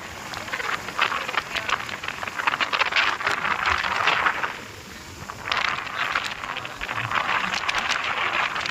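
Rattling and road noise inside the open-sided cabin of a moving small goods vehicle: a constant clatter of many quick knocks over a steady hiss, easing off briefly about halfway through.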